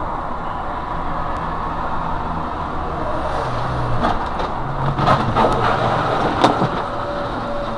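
Steady road and engine noise inside a truck cab on a highway, broken by several sharp knocks and clatter between about four and six and a half seconds in, as a motorcycle hits the truck and goes down under it. The last knock is the loudest. A steady high tone starts near the end.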